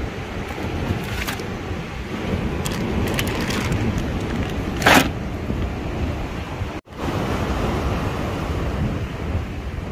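Wind buffeting the microphone, a steady low rumble. A brief, louder rush of noise comes about five seconds in, and the sound drops out for an instant shortly before seven seconds.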